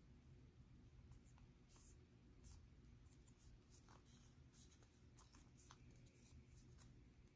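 Faint rustling and soft crinkling of origami paper as a folded paper maple leaf is handled and its folds pressed, in many short scattered touches over a low steady hum.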